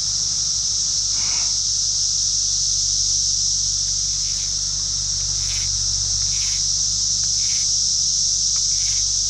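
Steady, high-pitched chorus of summer insects droning without a break.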